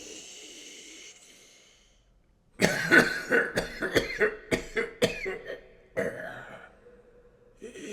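Coughing sound effect of an animated mummy prop: a rapid fit of harsh coughs starting about two and a half seconds in and lasting about three seconds, with one last cough just after.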